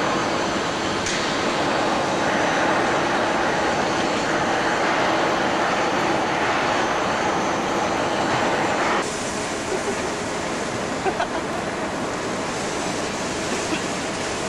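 Steady rushing rumble of a yacht's cradle rolling down a marine railway into the water. About nine seconds in the sound drops and turns quieter, with a few light knocks.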